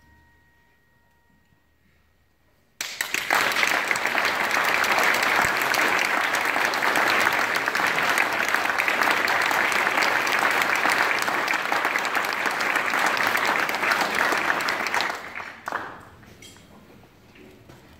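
A hush, then audience applause starting suddenly about three seconds in, holding steady for about twelve seconds and dying away near the end.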